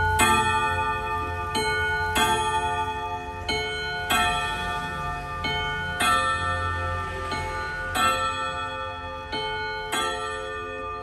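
ODO 62 ten-hammer wall clock striking the hour on its gong rods: hammer strikes in two-note pairs about every two seconds, each note ringing on into the next.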